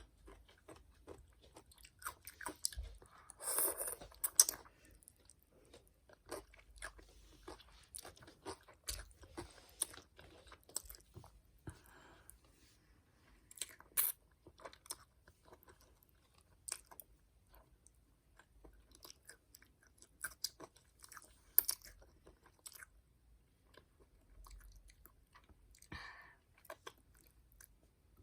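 A child chewing and biting into crunchy fresh cucumber with bibim-myeon noodles: a run of short, irregular crunches and mouth clicks.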